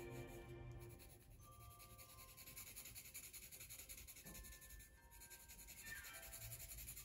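Coloured pencil shading on drawing paper: quick, light back-and-forth strokes, faint and scratchy.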